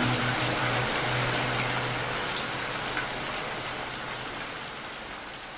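Steady rain noise, slowly fading out. The last low notes of soft background music die away in the first two seconds.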